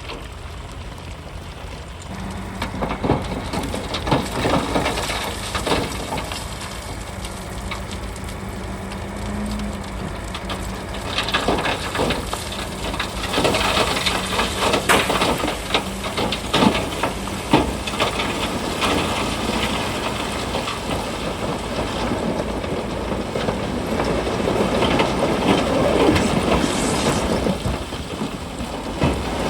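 Bulldozer working over rock: its diesel engine runs steadily under a stream of irregular clanks and crunches from steel tracks and breaking stone, busiest in the middle.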